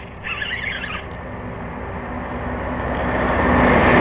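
Spinning reel being cranked against a fish snagged under a bush: a mechanical whirring that builds steadily and is loudest near the end. A short warbling squeal comes about a third of a second in.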